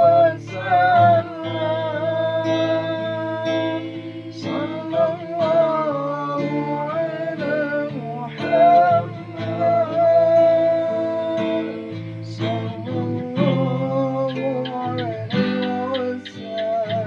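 Music: acoustic guitar accompaniment under a sustained, bending melody line, an instrumental passage between sung verses of a sholawat song.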